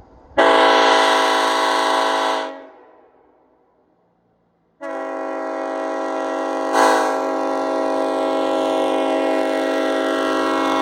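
Nathan K5LLA five-chime locomotive air horn sounding its chord: a short blast of about two seconds that dies away, then after a brief pause a long, steady blast held to the end.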